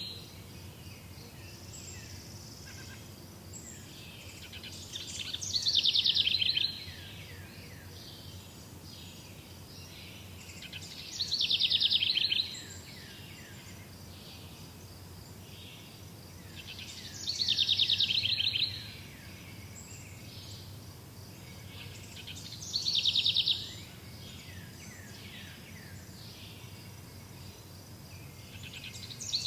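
A songbird repeating a short, rapid trilled song that falls in pitch, each phrase about a second and a half long, about every six seconds, over a steady low background rumble.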